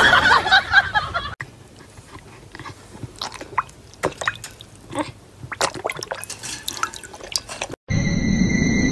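Dog lapping water from a bowl: soft, irregular splashy laps. A louder, busier sound fills the first second or so, and a steady hiss with thin high tones starts near the end.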